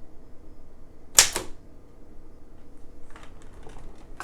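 Oliver typewriter typebar struck once, a sharp clack against the platen about a second in, as a test strike while setting the upper-case alignment. A few faint small clicks follow near the end.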